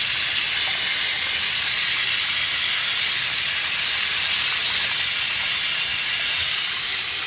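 Bathroom sink faucet running at full flow, the stream splashing over a hand into the basin: a steady hiss of water.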